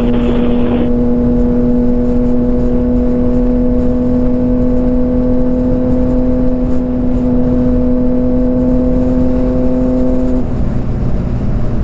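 Motorcycle engine running at a steady speed under heavy wind rumble on the microphone. About ten seconds in, the engine note drops to a lower pitch as the bike eases off.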